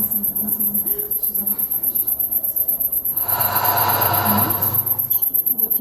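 Insects chirping in a rapid, steady, very high-pitched pulse. A rushing noise swells up and fades out about three to five seconds in.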